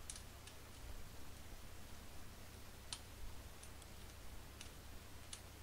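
Light, scattered clicks of a small pointed hand tool working in a drilled hole in a wooden block, about seven over a few seconds, the sharpest about halfway through, over a low steady hum.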